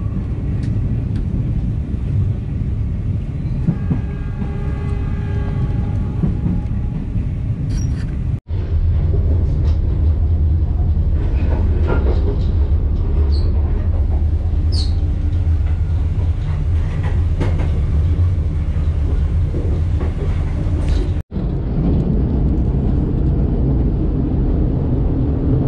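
Argo Parahyangan passenger train running, heard from inside the coach: a steady low rumble from the wheels and track. It breaks off abruptly twice.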